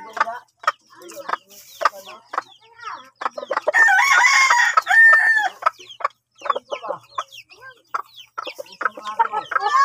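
Rooster pecking at grain pellets in a bowl, its beak tapping in quick irregular clicks. A rooster crows once, a held call of about two seconds, about four seconds in.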